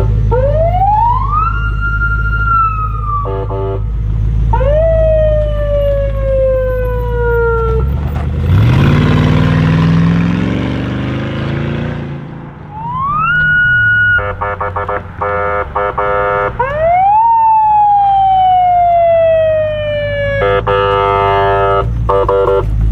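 Electronic police siren on an ex-police Ford car, cycling through long rising-and-falling wails and bursts of fast warbling tones. Partway through, the car's engine revs up hard with a rush of noise.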